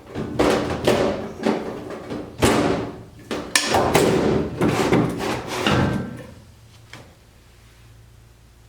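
Metal tool box drawers sliding on their new drawer slides and banging shut: a quick run of clanks, slams and scrapes, which stops about six seconds in.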